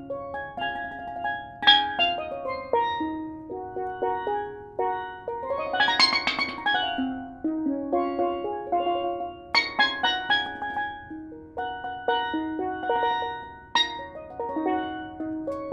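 Steel pan played solo with sticks in a freestyle melody: a quick run of struck, ringing notes, with a dense flurry of rapid notes about six seconds in.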